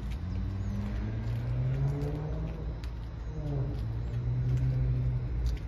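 A motor vehicle's engine rising in pitch as it revs, dropping about three seconds in, then running steadily, over a low rumble. A few light clicks stand out above it.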